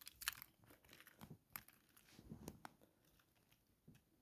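Faint handling noises from a toy train engine being turned over in the hands: scattered light clicks and ticks with soft rustles, a couple of sharper clicks in the middle.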